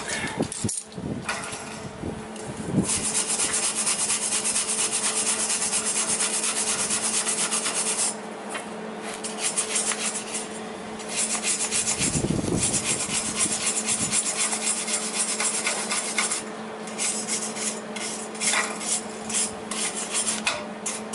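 Flux-core wire-feed welder arc crackling as steel caster mounts are welded to the cart frame. Two steady runs of about five seconds each, from about three seconds in and again from about eleven seconds, then short stop-start tacking bursts near the end.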